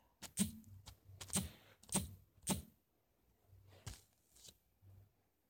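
Irregular key taps, someone typing a search: about eight short sharp clicks spread over five seconds, the clearest in the first three.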